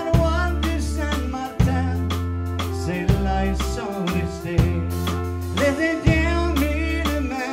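Cajun band playing a song: a button accordion and a drum kit, with a man singing. The drums put a strong accent on the beat about every one and a half seconds, under held low notes.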